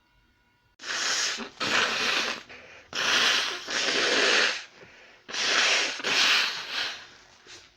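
A person blowing their nose hard: six forceful blasts in three close pairs, each just under a second long.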